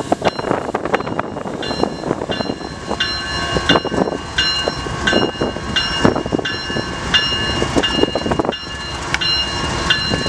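Freight diesel locomotives rolling slowly, engines rumbling and wheels clicking over the rails, with a bell ringing about every 0.7 seconds.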